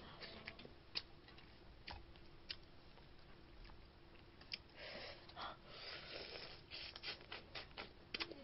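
Faint clicks and crackling as boiled snow crab shell is pulled apart by hand, with quiet chewing of the crab meat. A longer stretch of crackling comes about five seconds in.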